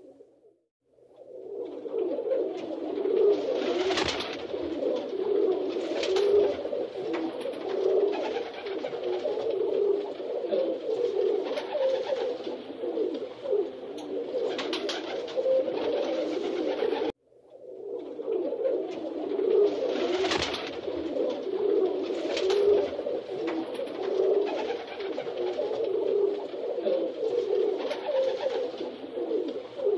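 A flock of rock pigeons cooing continuously in dense, overlapping coos, with sharp wing flaps every few seconds. The sound drops out briefly near the start and again about halfway through, then resumes.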